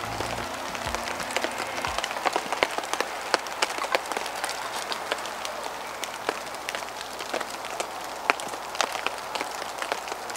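Steady rain falling, with many sharp taps of drops landing close by. A little background music fades out about two seconds in.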